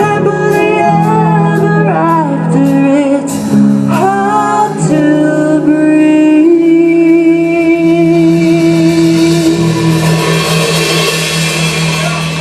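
Live rock band with a singer over guitar and drums: sung lines give way about six seconds in to one long held note. The band then rings out a sustained chord with cymbal wash that begins to fade near the end.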